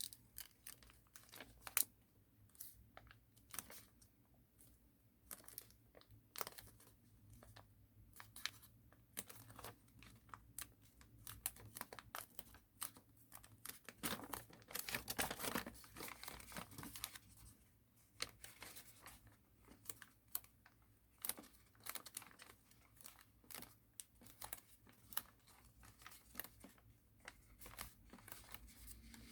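Origami paper being folded, creased and pressed down by hand: scattered crinkles and soft taps, with a denser stretch of paper rustling about halfway through.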